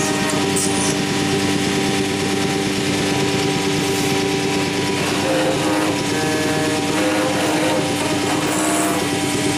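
Anderson Stratos Pro CNC router running, its right-angle aggregate head driving a profile cutter through a wooden door rail for a cope-and-stick joint: steady machine tones with the cutter's noise in the wood, the tones shifting a little midway.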